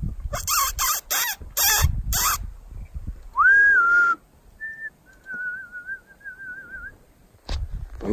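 A few breathy puffs, then a series of whistles: a note that rises and then falls a little, a short higher note, and a long wavering note near the middle.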